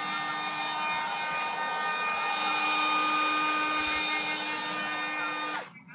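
Handheld electric heat gun running: a steady fan-motor whine over a hiss of rushing air, cutting off abruptly shortly before the end.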